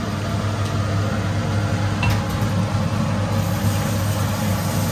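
A steady low hum with an even rushing noise under it and a few faint clicks, like a kitchen appliance or extractor running.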